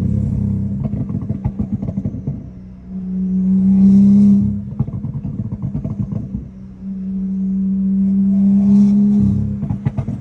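Turbocharged BMW straight-six engine pulling hard in repeated bursts, its note building in loudness, with stretches of rapid crackling and popping from the exhaust between the pulls.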